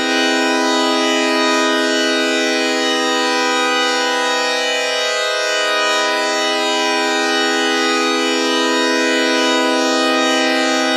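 Tokyoup V509 siren sounding a steady, loud, rich tone that holds one pitch throughout, with a brief waver in the low note about halfway through.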